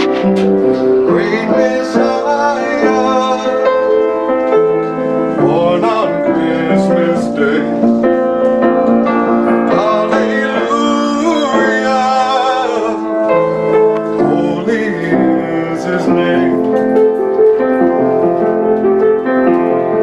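Background music led by piano, with held notes and a voice rising in places; no words are sung.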